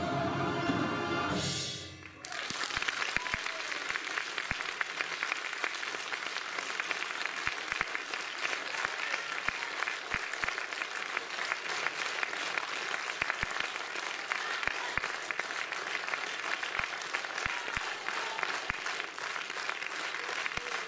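A folk-instrument orchestra with guitar and domra holds a final chord that stops about two seconds in, then the audience breaks into steady applause.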